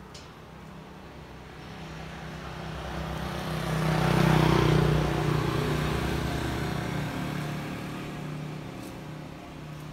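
A motor vehicle passing by: its engine hum swells to a peak about four seconds in, then slowly fades away.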